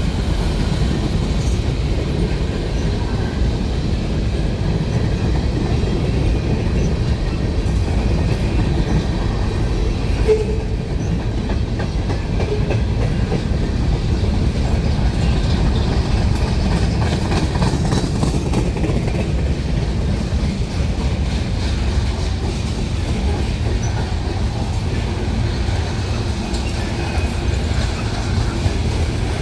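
A CSX manifest freight train rolling past: a steady loud rumble of railcars with wheels clacking over the rail joints.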